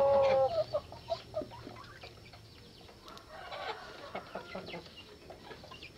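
Native Indonesian village chickens (ayam kampung) clucking faintly, a few short scattered clucks.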